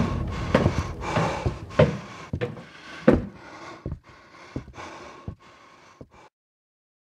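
A person panting heavily in quick breaths, with sharp clicks and knocks among them, fading and cutting off suddenly about six seconds in.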